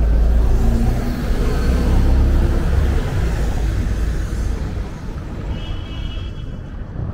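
Street traffic: a motor vehicle passes close by with a deep engine rumble that fades after about three seconds. A brief high tone sounds near the end.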